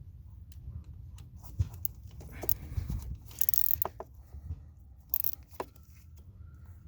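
Irregular metallic clicks and clinks of hand tools on nuts, with a few short scraping rustles, as the shifter assembly's nuts are tightened bit by bit.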